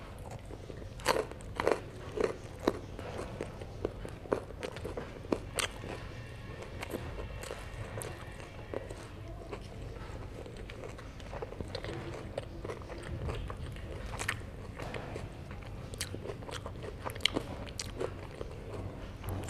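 Close-miked biting and chewing of herring, with sharp crunching bites. The crunches are loudest and most frequent in the first few seconds, then come more sparsely between softer chewing.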